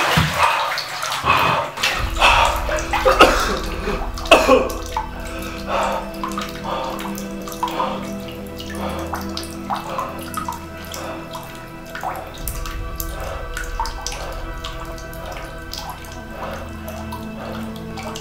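Bathwater splashing and sloshing as a person moves and sits up in a filled bathtub, loudest in the first few seconds, then settling into scattered small splashes and drips. A low, steady musical drone runs underneath.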